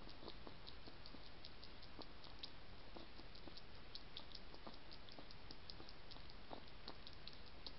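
A European hedgehog feeding at a shallow metal dish: fast, irregular small clicks and smacks from its mouth, several a second, faint over a steady hiss.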